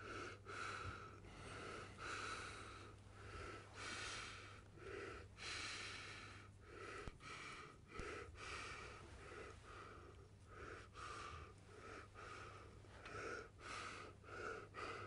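Faint, short breaths in and out close to the microphone, repeating about once or twice a second, over a low steady hum.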